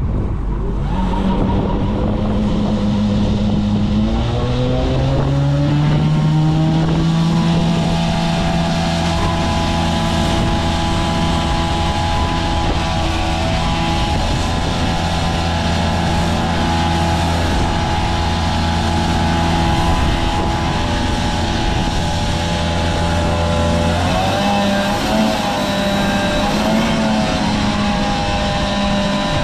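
Tractor engine running, speeding up about five seconds in and then holding a steady higher speed, with its pitch dropping and wavering near the end.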